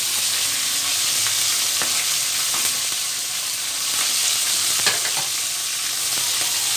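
Pieces of yellowfin tuna head frying in hot oil in a wok: a steady sizzle with a few sharp ticks.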